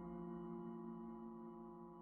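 Music: a held chord of many steady tones slowly fading away.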